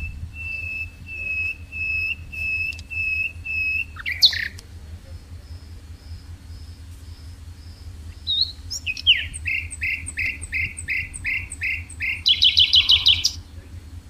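A songbird singing: a run of clear repeated whistled notes, about two a second, then a sharp sweeping call about four seconds in. Later comes a faster series of notes that ends in a loud rapid trill near the end. A steady low hum lies underneath.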